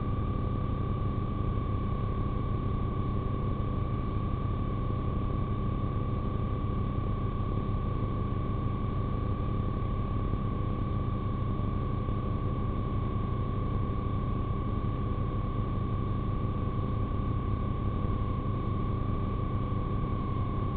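Steady low rumble of a police car heard from inside, with a continuous high-pitched steady tone running over it.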